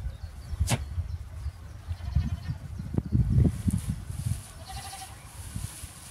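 A goat bleats once, briefly, near the end, over low rumbling bursts in the middle and a single sharp click near the start.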